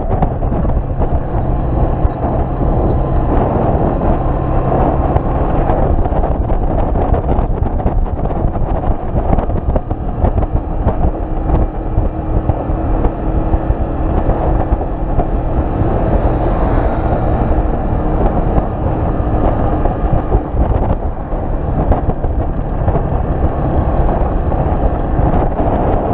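Keeway RKS 150's single-cylinder engine running at a steady cruising pace while riding, with wind rushing over the microphone.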